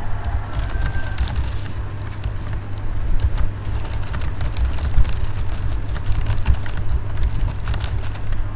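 Computer keyboard being typed on: irregular quick key clicks over a steady low electrical hum.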